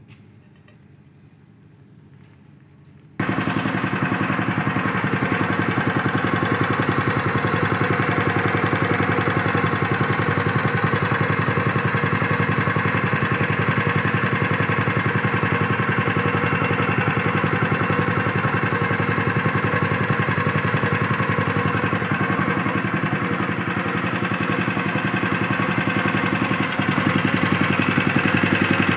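An engine running steadily at a fast, even beat. It cuts in abruptly about three seconds in after faint background.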